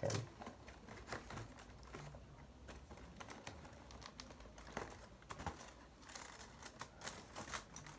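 Faint, scattered clicks and rustles of a cardboard chocolate advent calendar and its wrapper being handled as a removed day's door is pushed back into place.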